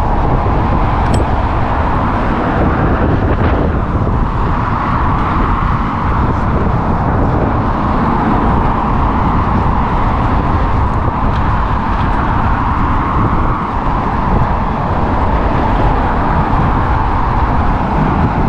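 Steady rushing wind and road noise from riding a bicycle, with cars passing on the road alongside.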